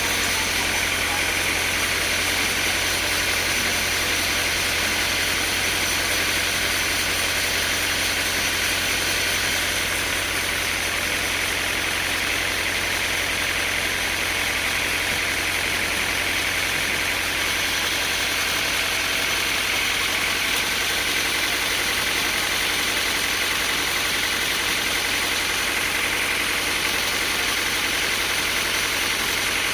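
Sawmill machinery running with a steady, even engine-like drone, no cutting strokes or changes in pitch.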